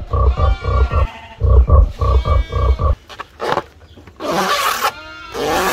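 A fast run of loud, pitched, grunt-like animal calls, about five a second, that stops about three seconds in. Then come two bursts of hissing noise.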